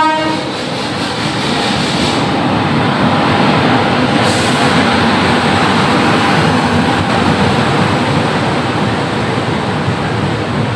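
WAP-7 electric locomotive and coaches of an express train passing close at speed: a loud, steady rush and rumble of wheels on rails. A horn blast cuts off right at the start.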